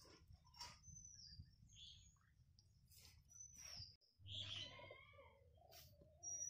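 Faint birdsong: a few short, high chirps that slide down in pitch, and a longer, wavering call about four seconds in.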